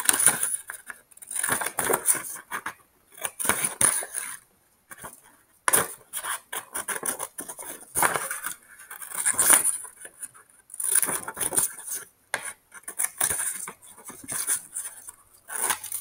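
Scissors snipping through paper in short runs of cuts with brief pauses, along with the rustle of the paper sheet being turned and handled.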